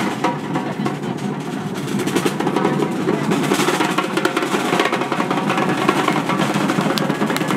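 Street percussion band playing large bass drums with sticks in a dense, steady rhythm, growing a little louder about two seconds in.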